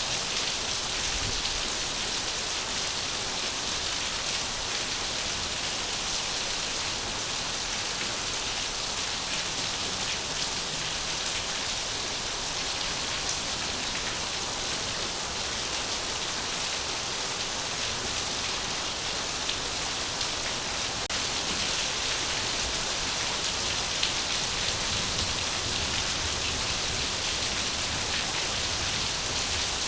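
Steady rain falling: a continuous, even hiss with a fine patter of drops.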